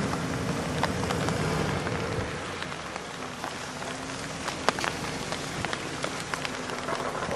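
The 5.2-litre V8 of a 1993 Jeep Grand Cherokee runs at low speed. It is loudest for about the first two seconds, then drops to a lower, steadier note. Throughout there is a constant crackle of small sharp ticks.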